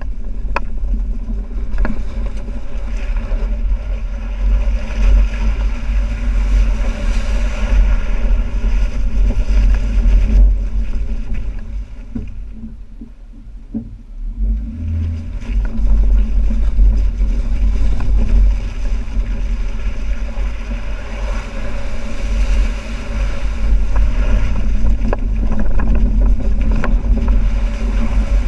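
2012 Jeep Wrangler Unlimited JK driving through a creek: a steady, loud, rough rumble of the engine and tyres working through water. It eases for a few seconds about halfway through, then picks up again.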